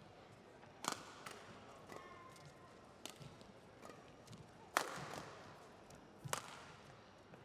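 Badminton rackets striking a shuttlecock in a men's doubles rally: sharp smacks roughly every one and a half seconds, the loudest about three-quarters of the way through. A brief squeak of court shoes comes about two seconds in.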